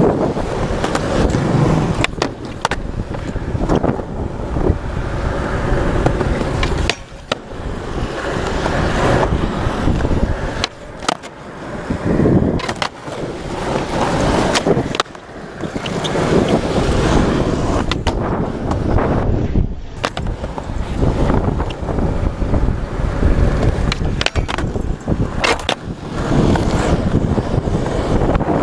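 Skateboard wheels rolling over rough pavement, with repeated sharp clacks of the deck popping and landing during flatground tricks.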